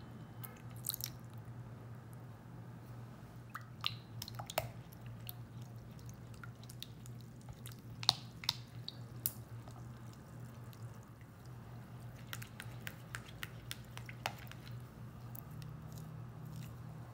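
Silicone spatula stirring a thin, wet yogurt, egg-yolk and milk batter in a glass bowl: soft wet squishing with scattered light clicks and taps of the spatula against the glass. A steady low hum runs underneath.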